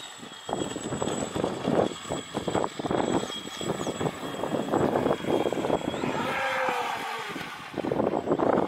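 Radio-controlled speedboat running at speed: a thin, high motor whine that wavers in pitch and cuts out about six seconds in, over choppy rushing noise from the hull and spray.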